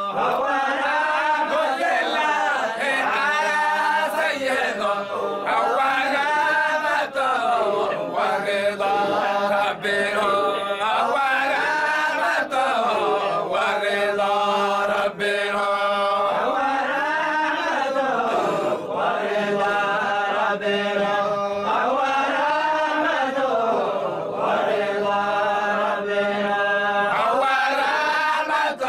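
A group of men chanting a Zayla'i Sufi dhikr in unison, repeating a phrase that rises and falls every two to three seconds.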